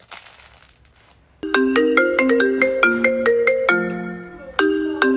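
Mobile phone ringing with a marimba-like ringtone melody that starts about a second and a half in, dies away on a low note and begins again near the end. Just before it, a short crunch of a crusty bread loaf being bitten.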